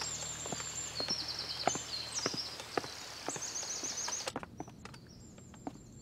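Footsteps on wooden stairs, heard as a run of irregular knocks, over birds chirping in repeated high trills. About four seconds in the outdoor sound cuts off, leaving a quiet room.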